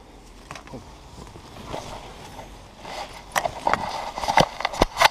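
Irregular knocks, rattles and rustling from an action camera strapped to a dog as the dog moves and the harness and lead are handled. The knocks come thickest and loudest in the second half, with the sharpest one near the end.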